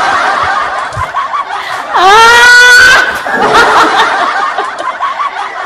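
People laughing, with one loud high voice rising into a held shriek about two seconds in that lasts about a second.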